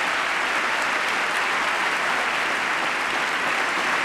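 Members of Congress applauding, the steady clapping of a large audience.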